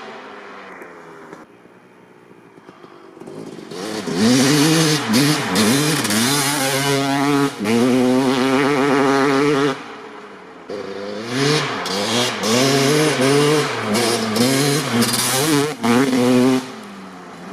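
1995 Honda CR250R's 250cc single-cylinder two-stroke engine, fitted with a Pro Circuit R-304 shorty silencer, ridden hard on a dirt bike. It is faint at first, comes in loud about four seconds in and revs up and down through the gears, eases off briefly around ten seconds, then revs hard again until shortly before the end.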